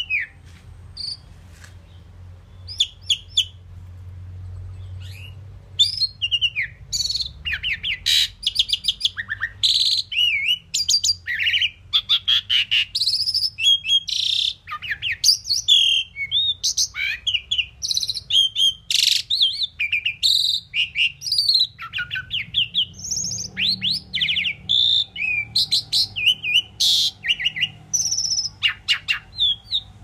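Asian pied myna singing: a few scattered calls at first, then from about six seconds in a fast, varied run of whistles, rising and falling chirps and sharp clicks.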